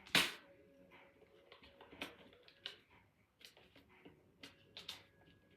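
Scattered light clicks and taps from hands working a phone and its screen adhesive into place, with one sharper click just at the start.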